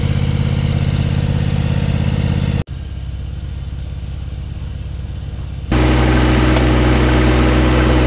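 Steady diesel engine running close by, most likely the John Deere 1025R compact tractor's three-cylinder diesel. About two and a half seconds in it drops abruptly to a quieter, more distant engine hum. It comes back loud and steady about three seconds later.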